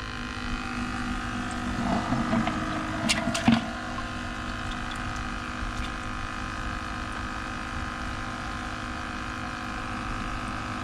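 Aerator pump of a live-bait bucket humming steadily while its air hose bubbles into the water. A few seconds in there is a brief splash with a couple of knocks as a hand reaches into the bucket for a live shrimp.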